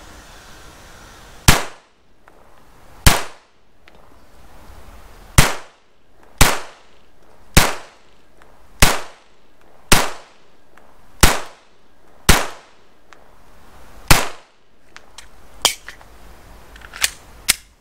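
Glock 44 .22 LR pistol fired ten times at an unhurried pace, about one shot every one to two seconds, each sharp crack with a short echoing tail. A few fainter clicks follow near the end.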